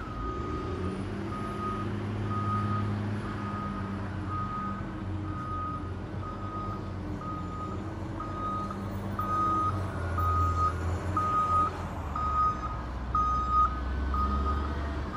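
Road roller engine running low with its reversing alarm beeping steadily, a little more than once a second, the beeps growing louder in the second half.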